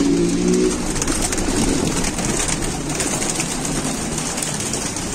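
Domestic pigeons cooing in the first second, then a flock of pigeons flapping their wings as they are let out of the coop, a dense fluttering over a steady hiss.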